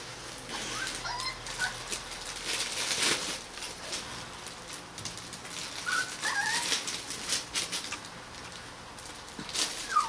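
Three-week-old Rottweiler puppies giving short, high squeaks and whimpers a few times, the last a falling squeal near the end, over scratching and rustling as they scramble on fleece and a fabric play tunnel.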